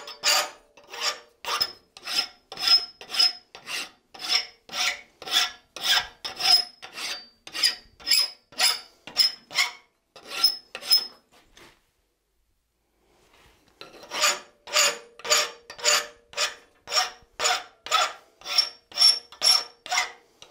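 Hand file rasping across the wings of a forged thumb screw clamped in a bench vise, about two strokes a second, with a faint ring from the metal. The strokes stop for about two seconds a little past the middle, then resume at the same pace.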